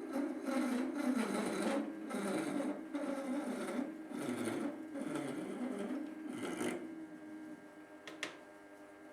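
Small metal lathe running while a parting-off tool cuts into the turning workpiece, the cutting noise coming in repeated pulses over a steady motor hum. About two-thirds of the way through the cutting stops and the running sound fades away, with a single sharp click near the end.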